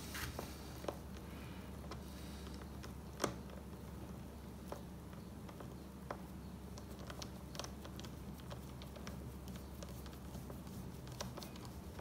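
Small clicks and light scraping of a precision T5 Torx screwdriver turning a screw into a laptop's aluminium bottom cover, with one sharper click about three seconds in. A low steady hum runs underneath.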